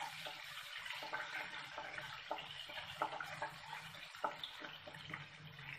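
Green chillies and ginger frying in a pan of hot oil with tempering spices: a faint, steady sizzle with a few sharp clicks scattered through it, over a low steady hum.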